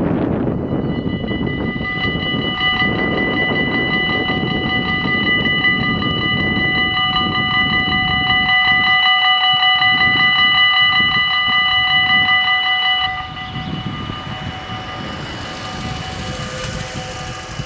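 Dutch level-crossing warning bells ringing in rapid, evenly pulsed strokes as the red lights flash and the half-barriers lower, cutting off sharply about 13 seconds in, after which a fainter ringing carries on. Wind buffets the microphone throughout.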